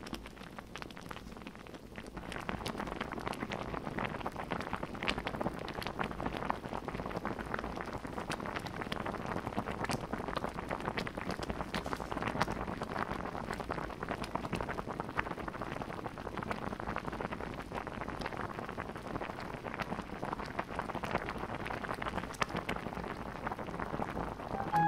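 Soybean paste soup boiling in a pot: a steady crackle of many small bubbles popping. It grows louder about two seconds in as the boil picks up.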